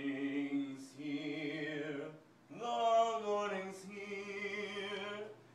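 A man singing long held notes with vibrato, one sung phrase after another, with a short break about two seconds in.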